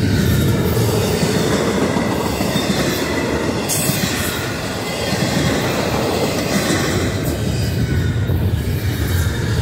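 Double-stack intermodal freight cars rolling past: a loud, steady rumble of steel wheels on the rails, dipping slightly midway.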